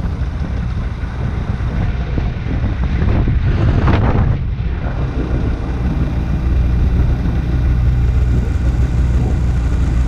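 Snowmobile two-stroke twin engine of a Polaris 850 Pro RMK running steadily, growing louder around four seconds in and again a couple of seconds later.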